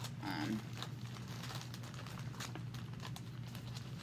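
Paper being handled and shuffled: soft rustling with small irregular taps and clicks, over a steady low hum. A brief vocal sound comes just after the start.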